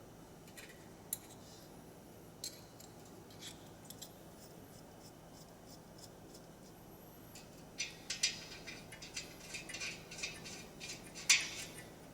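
Scattered light clicks, taps and scrapes of small parts and tools being handled, with a quicker run of them about eight seconds in.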